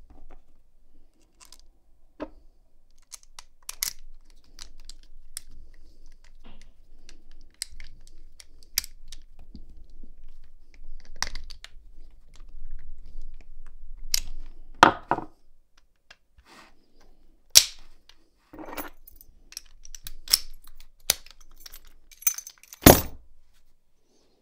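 Brass American Lock 1100 padlock being handled and tested with its key: a run of small metallic clicks and clinks, then several sharp clicks in the second half as the key turns and the shackle snaps open and shut, and a heavier knock near the end as the lock is set down.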